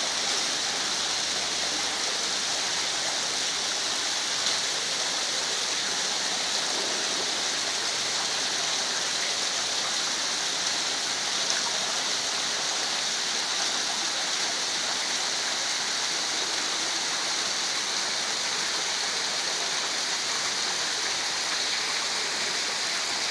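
Artificial rock waterfall: water falling and splashing in a steady, unbroken rush with a bright hiss.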